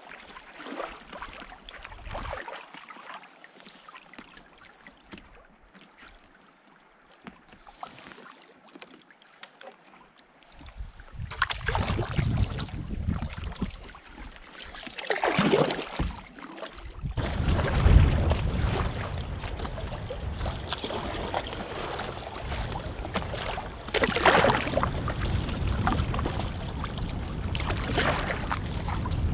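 Canoe paddle strokes and water splashing and lapping at the canoe's side. About ten seconds in it becomes much louder, with wind buffeting the microphone in a low rumble over choppy water sloshing.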